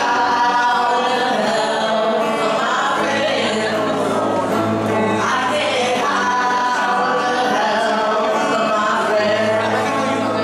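Small band playing live: a man singing lead with a woman's voice alongside, over acoustic guitar and bass.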